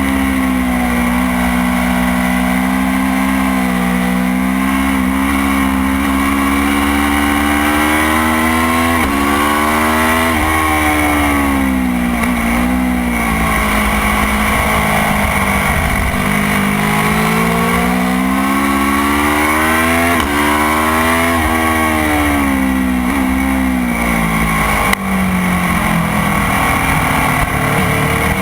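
Motorcycle engine pulling hard around a racetrack, its pitch climbing through the gears and dropping sharply at each shift, then falling and rising again through the corners, over a steady rushing noise.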